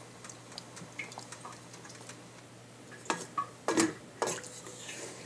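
Wooden spatula stirring a tomato-sauce beef stew in a metal pan, with a few sharp scrapes and knocks against the pan about three to four seconds in, over faint liquid simmering.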